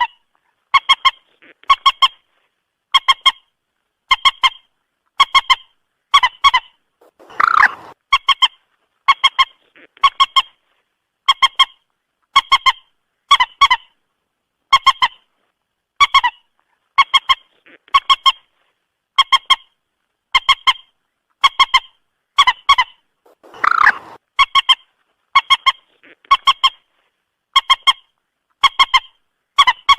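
Moorhen calling: short, sharp honking notes repeated about once a second, with two longer, harsher calls about sixteen seconds apart.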